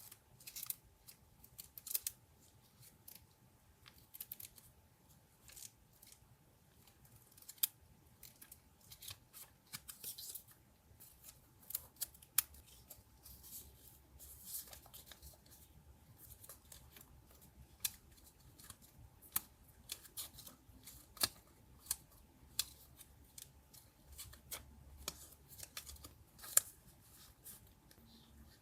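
Scissors snipping paper, many short crisp cuts at an irregular pace, with brief stretches of paper being handled between them.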